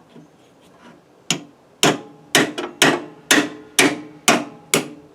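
Hammer blows on metal driving out a pin from a Craftsman lawnmower's deck mounting: about eight even strikes, roughly two a second, starting about a second in, each with a short ring.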